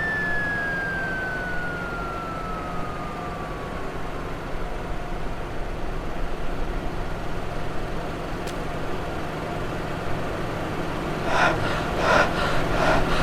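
Cartoon falling whistle: one long tone gliding steadily down over about five seconds, over steady hiss from an old soundtrack. Near the end, a quick run of about five pulsing tones.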